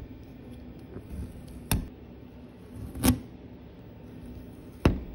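Handling noise from fingers working cut twill patch letters on a garment: three sharp taps, about one and a half seconds apart, over a steady low hum.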